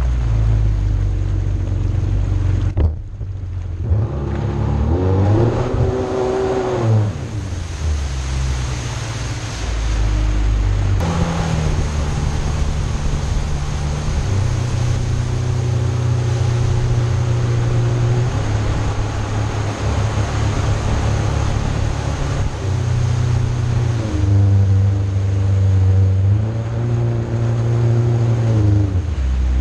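Jet ski engine running under way, its pitch rising and falling several times as the throttle is opened and eased, with water rushing and spraying off the hull.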